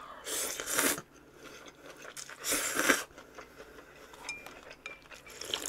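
Eating sounds close to the microphone: two short noisy bursts of biting and eating, the first just after the start and the second about two and a half seconds in, followed by small clicks and light clinks of utensils against dishes.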